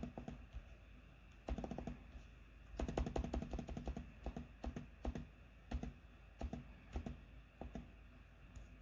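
Typing on a laptop keyboard: quick runs of keystrokes, then single key presses about half a second apart.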